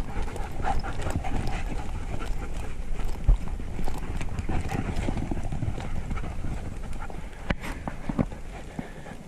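Footsteps and dogs' paws crunching along a dirt path as a group of white shepherds walks, an irregular run of small clicks and scuffs, with a couple of sharper clicks near the end.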